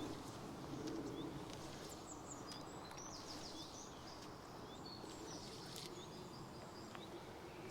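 Steady low rush of river water, with small birds chirping and trilling at intervals over it.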